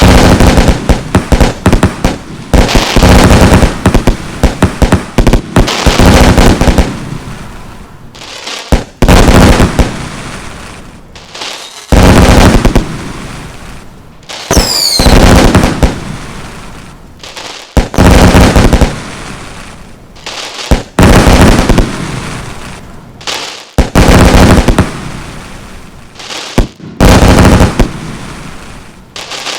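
Fireworks going off one after another: loud bangs every three seconds or so, each with crackling and rattling around it, and a brief falling whistle about halfway through. The bangs are loud enough to clip the recording.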